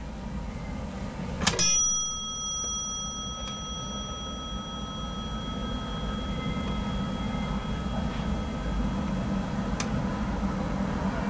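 Elevator hall-lantern chime: a single ding about a second and a half in that rings on and fades out slowly over several seconds. A low steady hum lies underneath.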